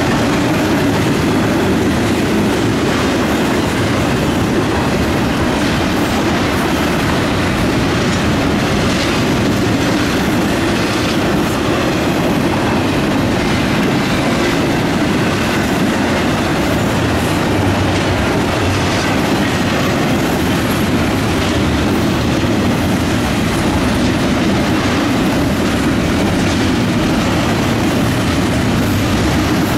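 Double-stack intermodal well cars of a long freight train rolling past steadily, their wheels rumbling and clacking over the rail joints.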